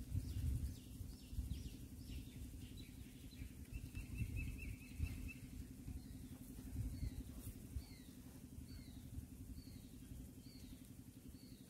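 Small birds calling in repeated short, falling chirps, with a brief trill near the middle, over a steady low hum.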